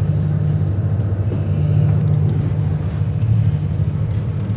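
The Royal One passenger ferry's engines running at a steady, loud, low drone, with a rushing hiss of wind and water over it while the boat is under way.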